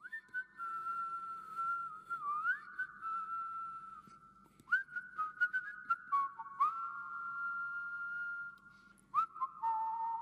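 Someone whistling a slow tune, each held note sliding up into pitch, at times two notes at once. Light clicks are scattered through it over a faint steady hum.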